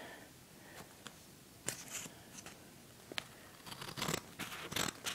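Scissors cutting open a paper envelope: a few scattered sharp snips with paper rustling, coming quicker over the last second and a half.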